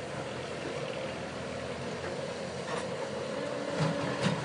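A loaded dump truck's diesel engine runs steadily as the truck drives off over rough ground. A few sharp knocks and rattles come through over the second half.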